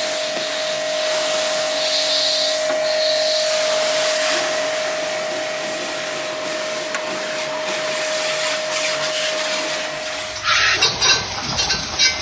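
Btali electric high-pressure washer running: a steady motor-pump whine with the hiss of the water jet. About ten seconds in it changes to a louder, uneven spray of water.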